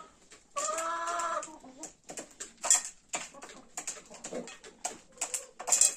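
Adler Silver chickens in a coop: one drawn-out call about half a second in, lasting about a second, over a run of short sharp clicks of beaks pecking feed and litter.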